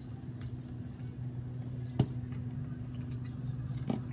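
A steady low hum, with a sharp tap about two seconds in and a lighter one near the end as a hand handles things on the table.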